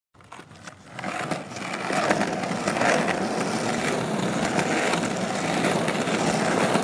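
Skateboard wheels rolling over concrete, a steady gritty rumble that swells over the first two seconds and then holds even.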